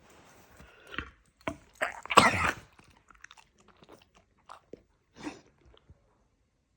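A dog coughing and hacking: a few short rough coughs, a longer, louder fit about two seconds in, then a few fainter hacks. It is the kind of cough the owners feared was kennel cough.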